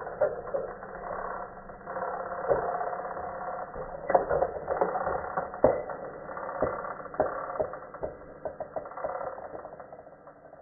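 Toy train running on wooden railway track: a steady mechanical hum with irregular clicks and knocks as the wheels pass over the track joints, fading near the end.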